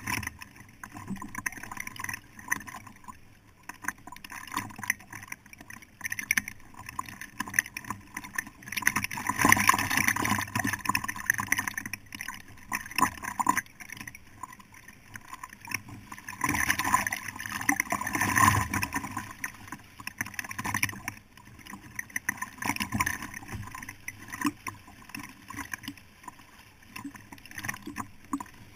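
Fast river current rushing and splashing around a kayak, with paddle splashes in the water. It swells louder twice, about a third of the way in and again past the middle.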